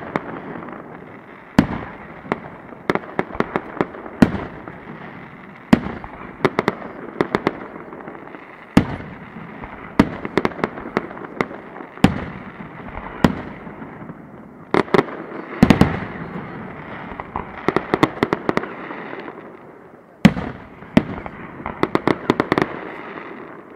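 Aerial fireworks shells bursting in the finale barrage of a fireworks display: sharp bangs every second or so, often in quick clusters, over a constant crackling rumble. The loudest cluster of bangs comes about two-thirds through.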